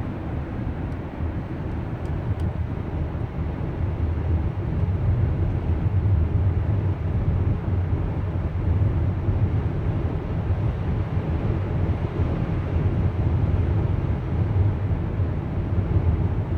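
A 2015 Chrysler Town and Country minivan running down the road: a steady low rumble of engine and road noise that grows louder about four seconds in.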